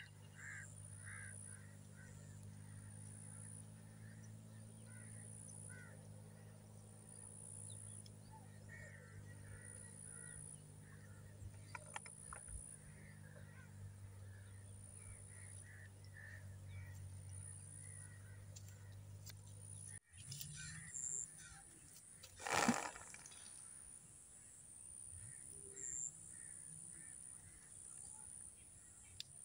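Faint outdoor ambience of crows cawing now and then, over a steady low hum and a high pulsing buzz. About twenty seconds in, the sound cuts off abruptly and the hum stops. A couple of seconds later comes one short, loud rushing noise, the loudest sound here.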